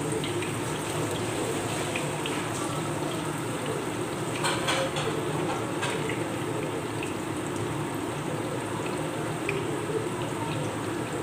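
Sweet potato chunks frying in a pan of hot oil: steady sizzling with small scattered pops, and a brief louder crackle about four and a half seconds in.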